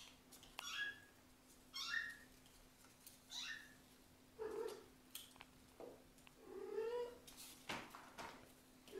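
Kittens mewing: short, high, thin calls about once a second, a few of them lower and drawn out.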